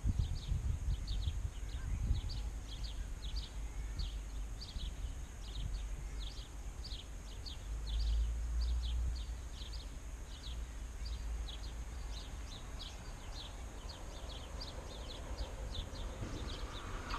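A bird calling over and over in short high chirps, over a low rumble. Near the end the faint hiss of an approaching train on the rails begins to rise.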